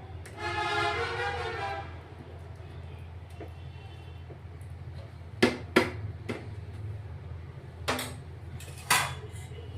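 A brief horn-like tone lasting about a second and a half, then a handful of sharp clicks and knocks, like utensils being handled, over a steady low hum.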